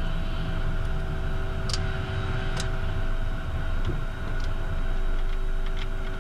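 Cockpit noise of a Beechcraft Premier 1A rolling out after landing: its twin Williams FJ44 turbofans at low power give a steady whine over a low rumble. A handful of sharp clicks come and go along the way.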